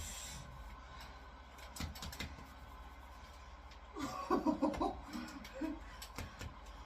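A few soft knocks, then about four seconds in a woman's short wordless vocal outburst with a wavering pitch, as she is caught by a muscle cramp mid-exercise.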